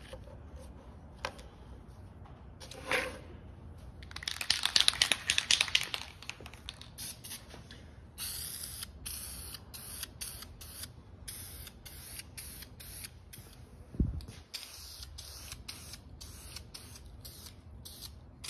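Aerosol spray can spraying grey primer onto wooden cleat patterns in a series of short hissing bursts with brief gaps between. About four seconds in there is a loud, rapid rattling lasting about two seconds, and a single dull thump comes about three-quarters of the way through.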